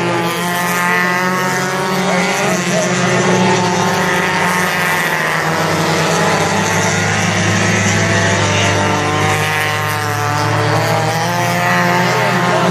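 A field of mini stock race cars running laps together on an oval track, several engines sounding at once, with pitches rising and falling as the cars pass.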